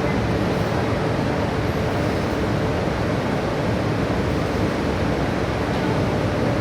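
Steady machinery noise, an even rush with a faint constant hum, unchanging throughout.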